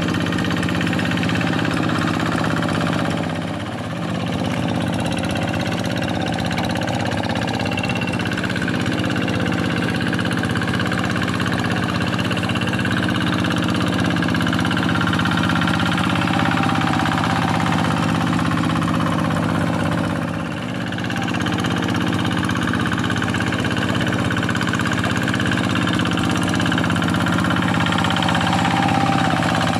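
Kubota diesel engine of a Quick G1000 two-wheel hand tractor running steadily while ploughing a rice paddy. The engine note dips briefly twice, about three and a half seconds in and again about twenty seconds in.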